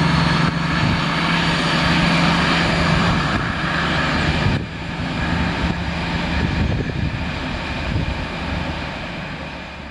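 DB class 218 diesel-hydraulic locomotive pulling away, its diesel engine giving a steady low drone that grows fainter. The level drops sharply about halfway through and keeps fading.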